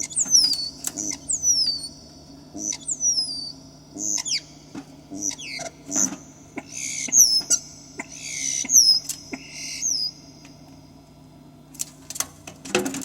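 Starlings calling: a run of high, downward-sliding chirps mixed with harsh rasping calls and small clicks, stopping about ten seconds in. A single knock sounds near the end.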